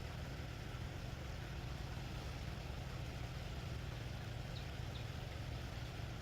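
A small engine running steadily at an even pace, a low drone that holds unchanged.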